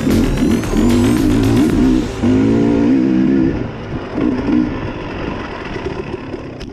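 Enduro dirt bike engine revving up and down as the bike is ridden, growing quieter in the second half. A sharp click comes near the end.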